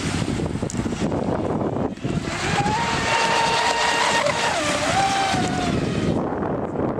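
Radio-controlled model boat's motor running at speed over steady wind and water noise. A high whine rises about two and a half seconds in, holds, dips briefly, then falls away shortly before six seconds.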